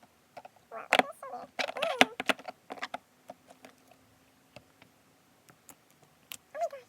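A fidget toy being clicked: irregular sharp clicks and taps throughout. Short high-pitched cries that bend in pitch come about a second and two seconds in, and again near the end.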